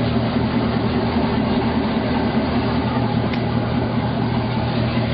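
An engine idling steadily: a low, even hum with no change in speed.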